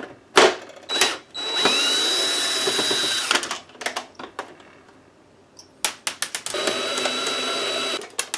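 Power screwdriver backing screws out of the plastic toy dashboard, running twice: once for about two seconds, its pitch rising as it spins up, and once for about a second and a half. Clicks and clatter of handling come between the runs.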